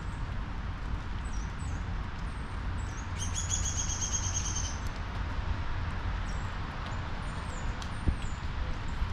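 Songbirds chirping with short high notes, with one bird giving a rapid buzzy trill for about a second and a half in the middle. A steady low rumble runs underneath, and there is a single brief knock near the end.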